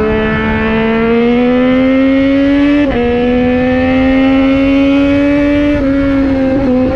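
Motorcycle engine accelerating hard, heard from the bike itself, with its pitch climbing steadily and dropping sharply at two upshifts, about three seconds in and again near the end. A low rush of wind and road noise runs under it.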